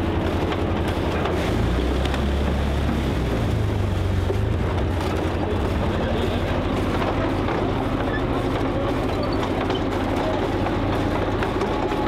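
Maybach HL 230 V-12 petrol engine of a Tiger II tank running steadily with a deep rumble as the tank moves slowly forward.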